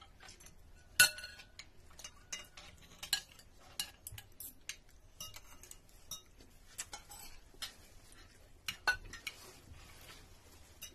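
Metal spoons and forks clinking and scraping against ceramic plates and bowls as people eat, a scatter of sharp clinks with the loudest about a second in.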